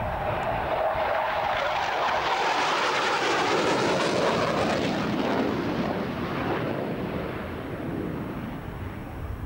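Military fast jet passing close in a display flypast: the engine roar swells to its loudest three to four seconds in, then fades as the jet draws away, dropping in pitch.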